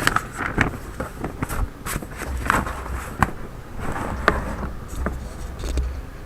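Paper and packaging of a toy helicopter being handled: rustling and scraping, with scattered clicks and knocks.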